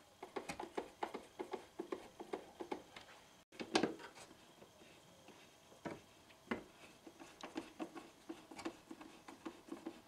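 Screwdriver turning screws into the plastic housing of a Siemens Dynapower vacuum cleaner: runs of light clicks, about four or five a second, with a louder knock nearly four seconds in and two more knocks around six seconds.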